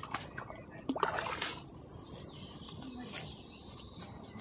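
Birds chirping faintly in an outdoor background, with a short louder burst of sound about a second in.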